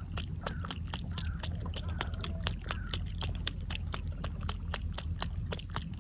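Chewing: a rapid run of sharp crunching clicks, several a second, over a low steady hum.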